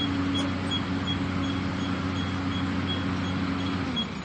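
Excavator's diesel engine running steadily under work, its note sagging slightly near the end. A faint high-pitched tick repeats about two or three times a second over the engine.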